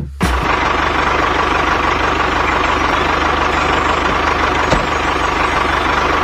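Motor running steadily with a fast, even low pulsing and a constant thin whine, starting abruptly just after the start.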